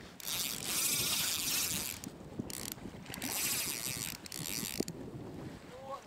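Spinning reel on a feeder rod being wound, its gears whirring in two spells of about two seconds each with a short burst between.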